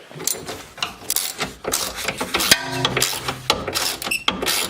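Hand tools and metal parts clicking, knocking and clattering at the car's heat shield in an irregular series of sharp clicks, with a brief buzzing rattle about halfway through.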